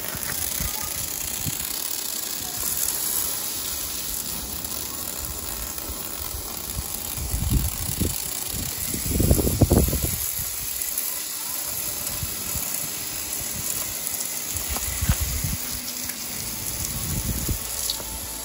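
Aerosol insect-killer spray can hissing in one long continuous spray at wasps, cutting off abruptly near the end. A few low rumbling bumps, like handling or wind on the microphone, come about eight to ten seconds in.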